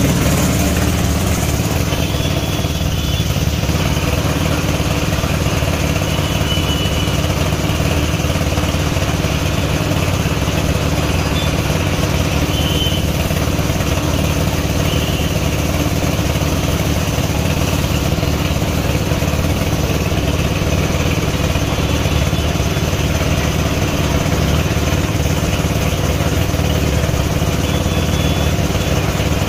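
An air compressor runs steadily, supplying a paint spray gun. It makes a constant mechanical drone with a low hum.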